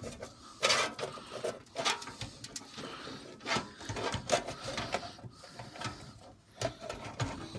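A motherboard being handled and manoeuvred into a PC case: irregular clicks, knocks and scraping as the board and case parts rub and bump against each other.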